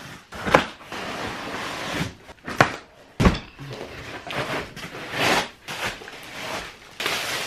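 Cardboard box and foam packing being handled while a boxed LED light panel is unpacked: rustling and scraping of cardboard and foam, with a few sharp knocks and a heavier thud about three seconds in, and plastic wrap crinkling near the end as the wrapped panel is lifted out.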